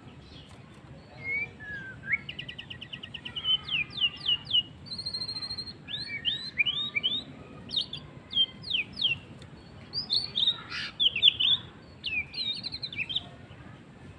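White-rumped shama (murai batu) singing a varied song of fast whistled phrases: steep down-slurred notes, rapid trills and short clear notes, delivered in bursts with brief pauses between them.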